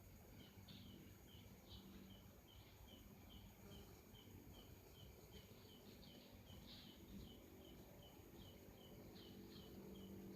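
Faint, regular chirping: short high notes repeated about three times a second, with a few louder, sharper chirps mixed in, from a small animal such as a bird or insect.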